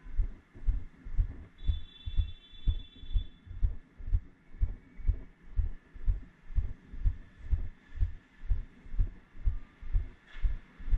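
Steady rhythmic low thumping, about two thumps a second, picked up by the microphone of a camera riding on a moving bicycle, over faint street traffic.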